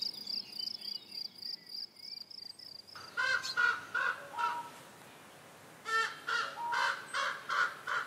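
Meadow crickets chirring in a steady, pulsing high trill that stops about three seconds in. Two bouts of short, harsh animal calls follow, each bout a quick string of three or four calls.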